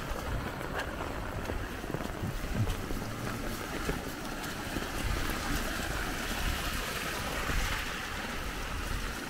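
Muddy runoff water rushing steadily along a swale and spilling over a small concrete-block weir, with wind noise on the microphone.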